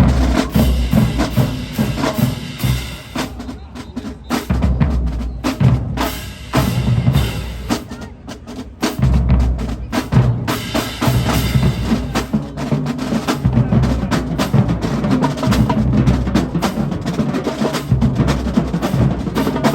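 Marching drumline playing a funk stand tune: snare drums with rolls and rimshots over bass drum hits, a fast continuous groove.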